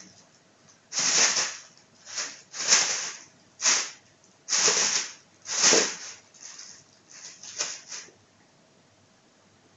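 A plastic bag rustling and crinkling in short bursts as a kitten plays in it, about one a second, then softer, quicker rustles that stop about eight seconds in.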